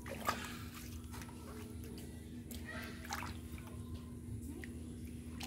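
Bare feet and hands sloshing in shallow muddy water, with a few short splashes at uneven intervals, the first just after the start being the loudest.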